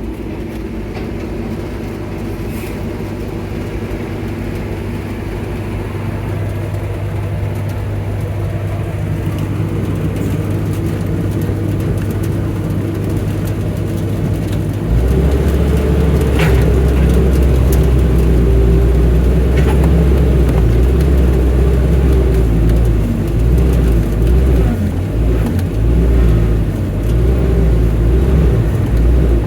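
Excavator's diesel engine running steadily. About halfway through it gets louder and deeper and stays that way, with a few short clanks after.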